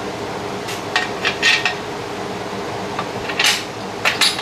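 Steel parts of a home gym clinking and knocking in short groups as pieces are handled and fitted back into place.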